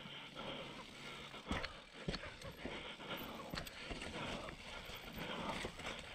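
Mountain bike riding down a rough dirt and stone singletrack: tyre noise over the ground with the bike rattling and clicking over bumps, and two sharper knocks about one and a half and two seconds in.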